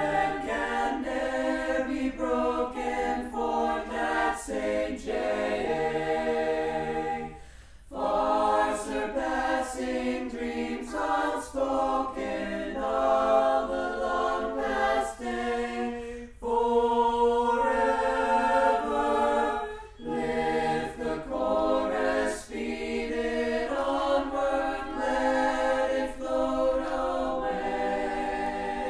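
A choir singing without accompaniment, in long phrases with brief pauses between them.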